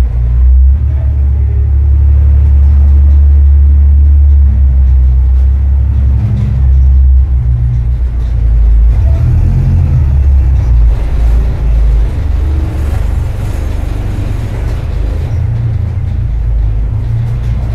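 Jeep Cherokee XJ's engine and drivetrain running with a steady low rumble as the truck crawls slowly over the rock floor of a mine tunnel, picked up close by a camera on the hood.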